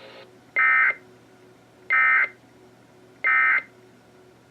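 Emergency Alert System end-of-message (EOM) data bursts on a NOAA Weather Radio broadcast: three short, identical warbling data tones, each about a third of a second and about 1.3 s apart. They mark the close of the weekly test transmission.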